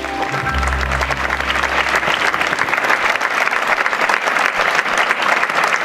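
Audience applauding: dense, even clapping that builds over the first second or two as the last low note of the music dies away.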